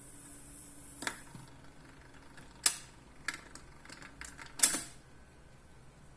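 A run of sharp mechanical clicks and knocks from a Montgomery Ward Airline GEN 6229A record player being handled, about six in four seconds; the player's hum cuts off with the first click about a second in.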